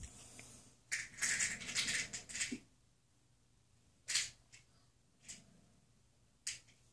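Handling noise of a small plastic toy figure being picked out of a plastic carrier case and turned in the fingers: a cluster of clicks and rustles from about one to two and a half seconds in, then three short single ones.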